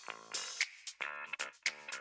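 Background music fading out: short plucked notes repeating about every half second, getting quieter.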